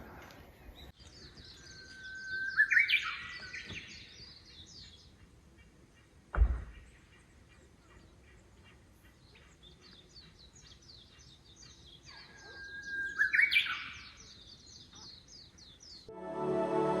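A bird sings the same phrase twice, a long steady whistle ending in a quick rising flourish, over a steady high twittering of other small birds. There is a single dull thump in between.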